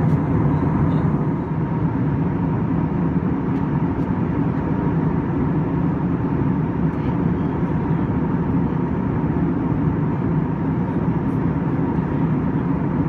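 Steady cabin noise of an Airbus A321-231 in climb, heard inside the cabin: its IAE V2500 turbofans and the airflow make an even, low drone, with a faint steady whine running through it.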